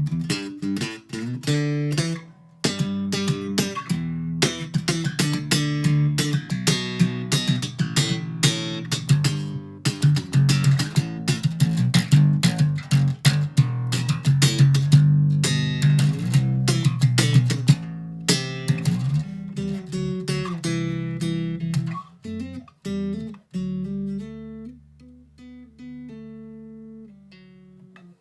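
Outro music played on plucked guitar, a fast run of picked notes that thins out and gets quieter over the last few seconds.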